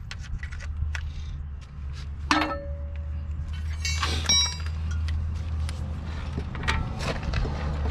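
Metal tools and parts clinking and clanking, with two louder ringing metal clanks about two and four seconds in, over a steady low hum.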